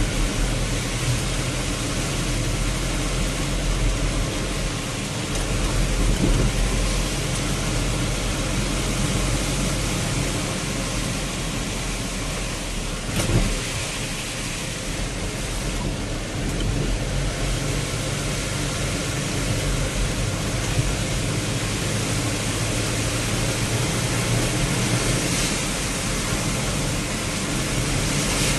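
Heavy rain and a vehicle running along a highway: a steady hiss of rain and road noise over a low engine hum, with a single thump about thirteen seconds in.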